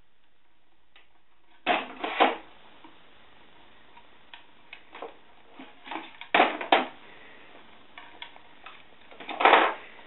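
An African grey parrot rummaging in a wooden drawer, knocking and rattling the objects inside: three loud clatters, about two seconds in, a little past halfway, and near the end, with lighter clicks and taps between.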